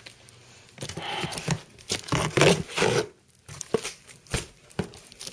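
Heavy shipping packaging being torn and scraped open by hand: a run of irregular ripping and scraping noises, loudest about two to three seconds in, then a few shorter ones.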